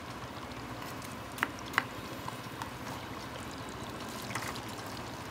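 Fritters deep-frying in a wok of hot oil, a steady sizzle. Two sharp metal clinks come close together about a second and a half in.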